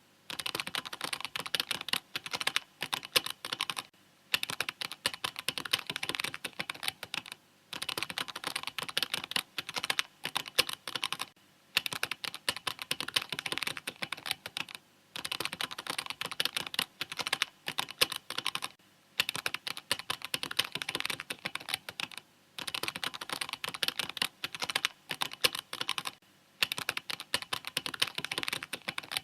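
Typing on a mechanical keyboard: rapid runs of key clicks broken by short pauses every few seconds.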